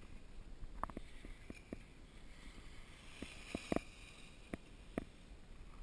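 Skis sliding and carving on packed snow, a steady hiss with wind rumbling on the moving action camera's microphone. A few sharp clicks cut through, the loudest two close together a little past the middle.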